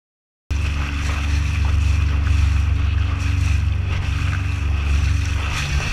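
Boat's outboard motor running steadily, with water rushing along the hull and wind on the microphone. It starts about half a second in.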